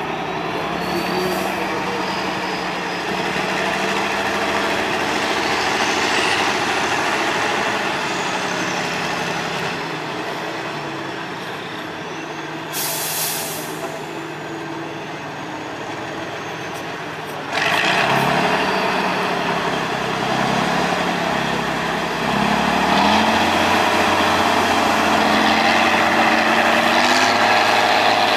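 Tatra 813 8x8 trial truck's diesel engine working under load, its pitch rising and falling with the throttle. A short hiss of air about halfway through, then the engine revs up sharply and stays louder, pitch climbing and dropping in steps.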